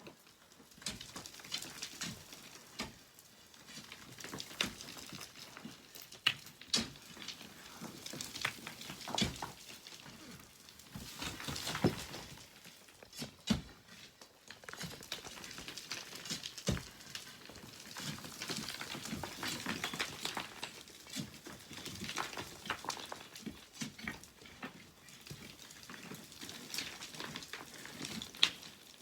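Sand and pebbles from a mined bank trickling and clattering down: a hissing trickle of sand that swells and fades, with irregular sharp clicks of small stones striking one another.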